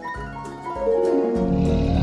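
Children's background music with plucked, keyboard-like notes. About one and a half seconds in, a louder low rumble joins it.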